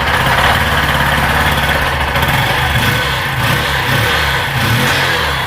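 Bajaj Platina 125 motorcycle's single-cylinder engine running at a steady idle. The engine has started again after a wash left it dead, once three shorted-together wires were separated.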